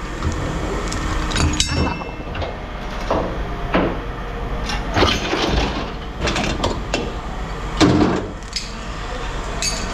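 Scrap metal being handled and set down: irregular clanks and knocks, about half a dozen louder ones, over a steady low hum.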